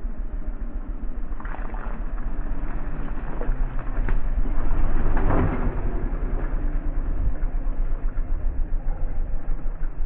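Honda CT125's single-cylinder four-stroke engine running while riding off-road, with a steady low pulsing rumble that swells louder about four seconds in and then eases.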